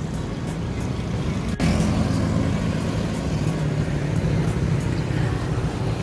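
Road traffic going past: a steady rumble of vehicle engines and tyres, with a brief sharp dropout about a second and a half in.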